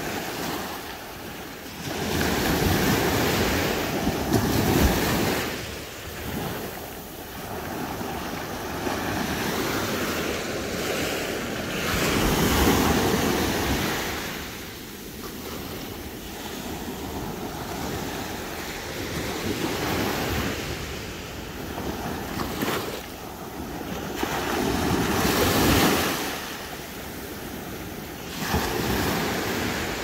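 Small ocean waves breaking and washing up a sandy beach. The surf swells and fades every few seconds as each wave comes in and draws back, with the biggest surges about three seconds in, near the middle and toward the end.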